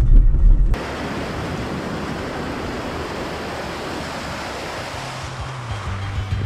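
Fast-flowing, shallow river water rushing over a ford crossing: a steady, even rush. It starts abruptly about a second in, replacing a low vehicle rumble, and a low steady hum joins about five seconds in.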